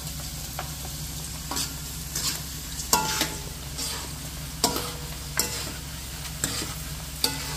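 Cornflake chips deep-frying in hot oil in a steel kadai, sizzling steadily, while a wire-mesh skimmer stirs them and scrapes against the pan in short strokes about once a second.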